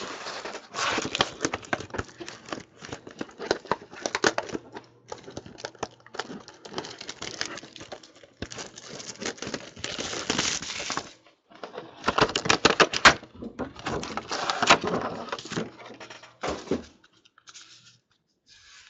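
Thin clear plastic bag crinkling and rustling as a trading card is slid into it and handled, in irregular bursts with brief pauses, dying down near the end.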